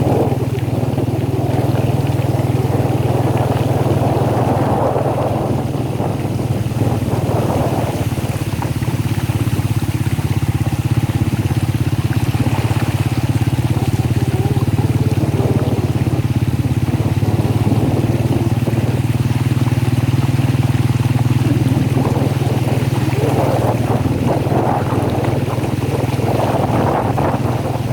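Steady low drone of a running motor vehicle engine, with rushing noise that swells about four seconds in and again near the end.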